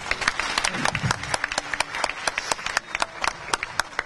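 An audience applauding: many hands clapping in a dense, uneven patter.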